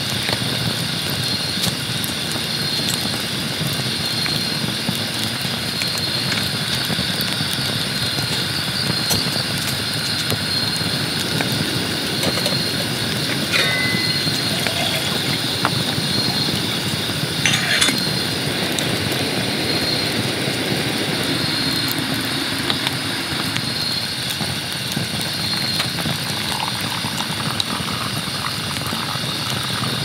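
Steady rushing of a mountain valley stream, with a high-pitched chirp repeating about every second and a half.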